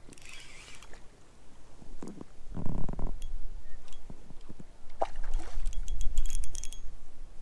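Scattered light clicks and handling rustle, with a dull thump about three seconds in and a low rumble after it, while a hooked trout is played from a float tube.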